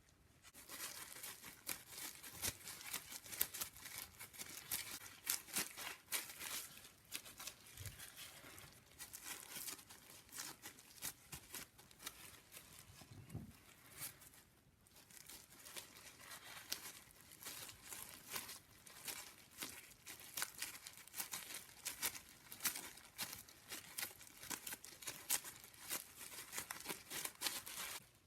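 Irregular rustling and crinkling from hands at work in food preparation, full of small crackles, with a short lull about halfway through.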